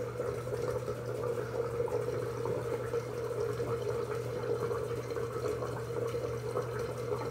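Bathroom sink tap running steadily, with water splashing as a face is rinsed with a washcloth.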